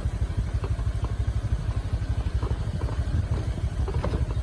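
A vehicle engine running steadily nearby, a fast, even pulsing rumble, with light scattered clattering on top.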